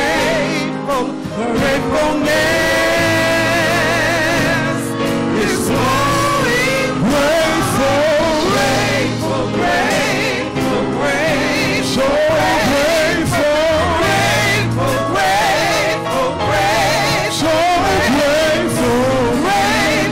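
Gospel praise team singing into microphones, several voices with wavering vibrato, over sustained instrumental chords.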